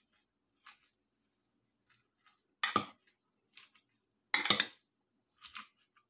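Metal spoon scraping and clinking against a ceramic bowl while chopped salad is tossed: a handful of short scrapes with gaps between them, the longest and loudest a little past halfway.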